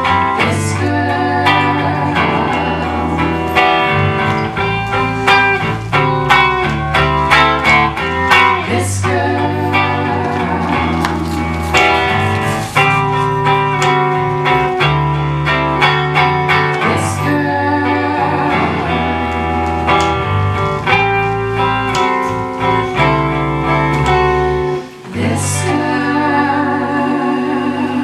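Live band music: three women singing in close harmony over electric guitar and bass guitar. Near the end the band breaks off briefly, then closes on a held final chord.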